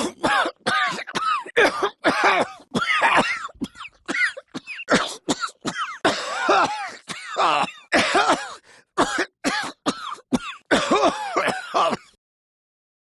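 A character's voice in a long coughing fit: a quick string of short, pitched, hacking bursts, two to three a second, that stops shortly before the end.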